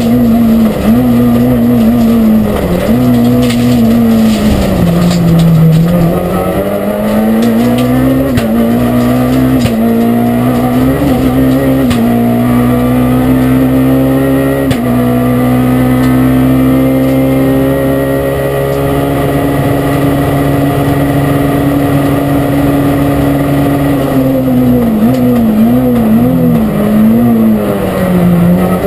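Renault Clio 3 R3 rally car's 2.0-litre four-cylinder engine, heard from inside the cabin at full stage pace. It is held high in the revs, dropping in pitch as the car slows for a corner about five seconds in and again near the end, with quick rev changes through the downshifts, then climbing back up.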